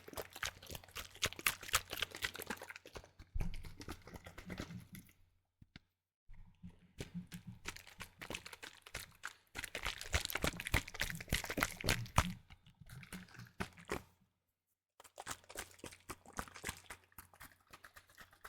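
Liquid sloshing as a plastic spray bottle of concentrated orange cleaner is shaken, in three long bouts of dense crackling splashes with short pauses about six seconds in and again near fifteen seconds.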